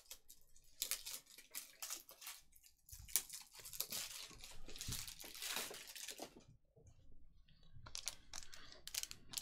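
Trading cards and a foil card pack being handled at close range: an irregular run of small crackles and rustles from card stock and the crinkly foil wrapper, pausing briefly about seven seconds in before starting again.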